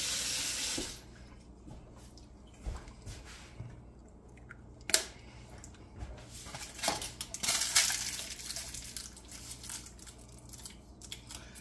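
Water running from a tap into a fermentation airlock stops just under a second in. Then come scattered small clicks, taps and knocks as the airlock is handled, with a sharp click about five seconds in and a cluster of clicks around seven to eight seconds.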